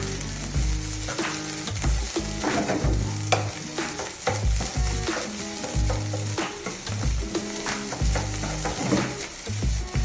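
Fried rice sizzling in a hot frying pan over a gas flame, stirred with a wooden spatula that scrapes and knocks against the pan many times in quick, irregular strokes.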